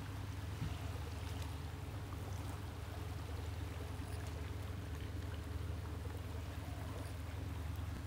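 Steady low drone of a running engine, with an even hiss over it.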